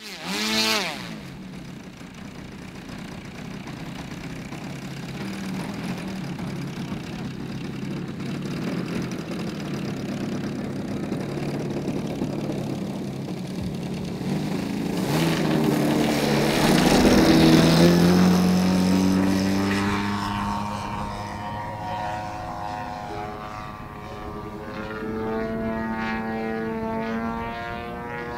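Petrol engine of a Pilot RC Laser 103-inch aerobatic model plane (GP 123 engine with tuned pipes) running: it idles at first, then is throttled up about 15 seconds in for the takeoff run and is loudest just after. It then rises and falls in pitch as the plane flies.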